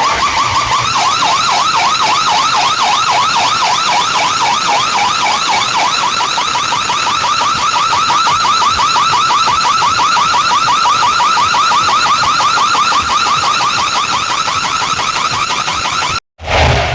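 Siren effect played loud through a large DJ sound system: a single rapidly warbling tone wavering up and down several times a second. It cuts off abruptly near the end.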